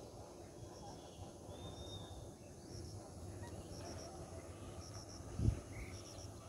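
Outdoor ambience: a steady low rumble with faint, short high chirps repeating about once a second. A single thump about five and a half seconds in is the loudest sound.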